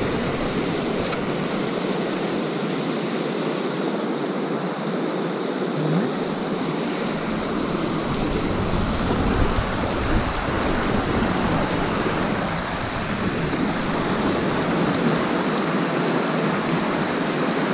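A fast mountain river rushing: a steady, even noise of flowing water, with low rumbles coming and going underneath.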